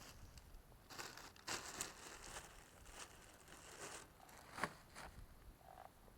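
Faint, irregular crackling and rustling from a small wood fire in a wood gas stove, with one sharp snap about four and a half seconds in.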